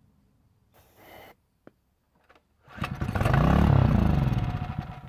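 A short hiss of aerosol starting fluid sprayed into the intake. About three seconds in, the 99cc Predator small engine, with no fuel in its tank, catches on the starting fluid, revs up and winds back down as it dies out over about two seconds.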